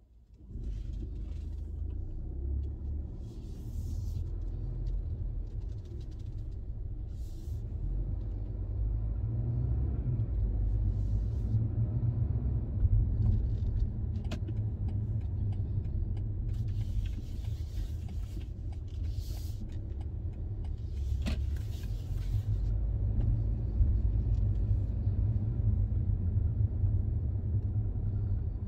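Car driving on a motorway: a steady low rumble of road and engine, starting about half a second in, with short hissing swells every few seconds and two sharp ticks.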